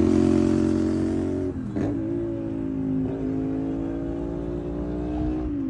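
CFMOTO 450SR's parallel-twin engine running at steady revs under way, with a quick dip in pitch about a second and a half in, then easing down slowly, and another dip near the end.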